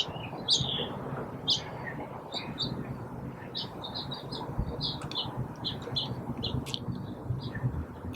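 Small birds chirping: a few louder high chirps in the first couple of seconds, then a quick run of short notes, over a steady low rumble.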